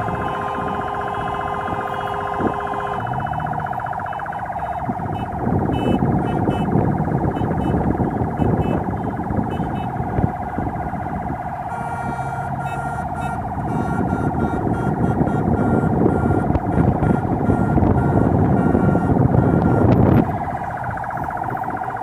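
An electronic siren sounds continuously with a fast pulsing tone, over the rumble of a moving car. The rumble grows louder about five seconds in and drops off suddenly near the end.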